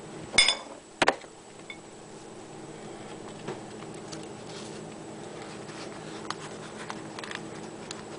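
A light ringing clink of kitchenware, then a sharp click about a second in. After that come faint ticks of hands arranging toppings and rolling a roti, over a steady low hum.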